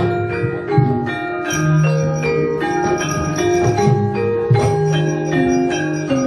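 Javanese gamelan playing fast battle music: bronze metallophones ring out a quick run of struck notes, several a second, over low gong and drum strokes, with sharp clacks scattered through it.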